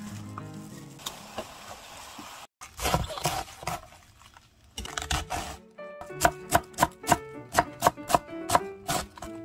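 Kitchen knife chopping through cabbage on a cutting board, sharp even strokes about two to three a second starting about six seconds in, over light background music. Earlier there are a few brief rustling and handling noises.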